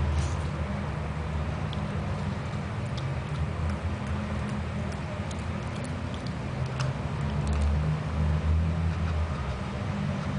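Faint, irregular crunching clicks of a Shih Tzu chewing raw carrot, over a steady low rumble.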